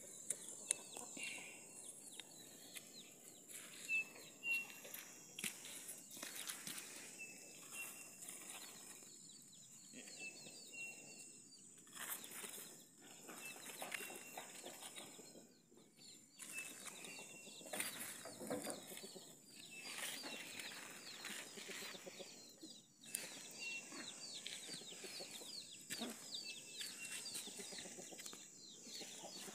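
Chickens calling, many short high peeps and clucks repeating, over a steady high-pitched hum.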